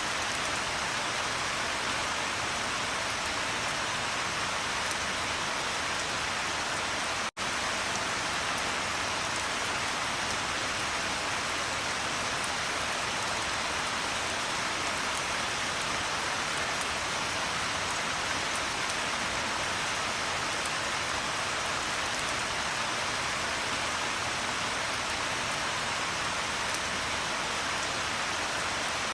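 Steady rain falling and pattering on a surface, a dense even hiss with no thunder. The sound cuts out for a split second about seven seconds in.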